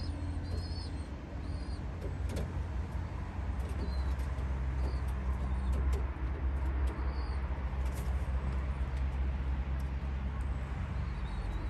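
Racing pigeons cooing, over a steady low rumble, with faint high chirps of small birds now and then.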